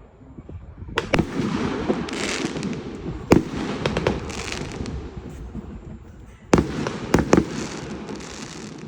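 Fireworks going off: sharp bangs, a few in the first half and a quick cluster of loud ones about six and a half to seven and a half seconds in, with crackling and fizzing between.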